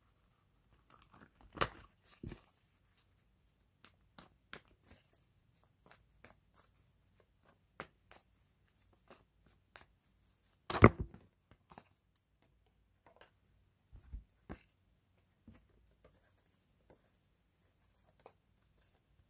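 Tarot cards being handled and shuffled: scattered soft rustles and light clicks, with one sharper knock a little past halfway.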